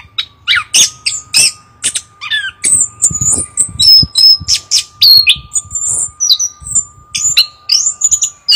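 Chestnut-capped thrush (anis kembang) singing loudly: a fast, varied run of sharp, high whistled and chattering notes with hardly a pause.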